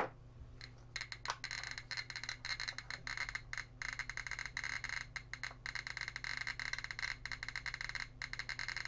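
GQ GMC-300E Geiger counter with a freshly fitted SBM-20 tube clicking rapidly and irregularly, many clicks a second, as it picks up radiation from a uranium-glazed Fiesta ware shard. A single knock comes right at the start.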